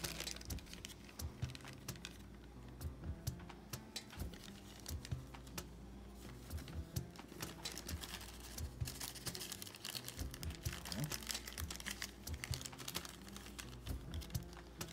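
Small plastic candy-kit trays and packets being handled on a table: scattered light clicks, taps and crinkles, irregular and quiet.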